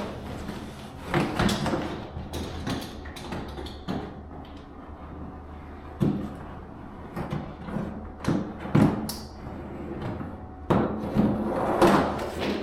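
Luxury vinyl planks being handled and fitted: irregular knocks, taps and scrapes of plank against plank and floor, with a cluster of louder knocks near the end.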